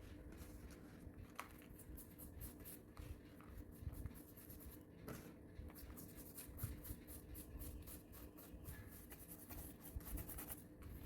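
Faint scratchy rubbing strokes, a few a second, of rust being worked off old steel scissors, over a low steady hum.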